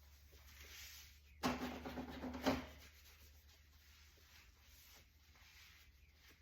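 Dishwasher rack rolled along its rails for about a second, ending in a sharp knock as it stops.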